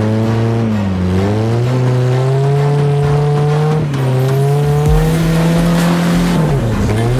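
Ford Thunderbird drift car's engine revving hard as the throttle is worked. Its pitch climbs, dips briefly about a second in, drops sharply about four seconds in, then climbs again.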